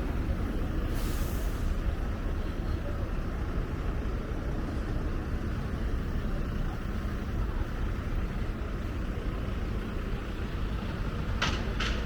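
City street ambience: a steady low rumble of traffic, with a short hiss about a second in and two brief sharp high-pitched sounds near the end.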